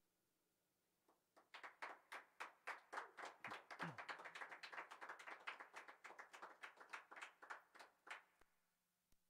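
A small audience clapping, a quick run of overlapping claps that starts about a second in and dies away near the end. The applause is faint.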